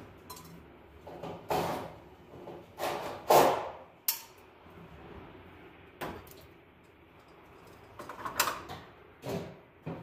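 Scraping, rustling and clicking as electrical wires and fittings are handled at a ceiling light box: several short scrapes and clicks, the loudest about a third of the way in.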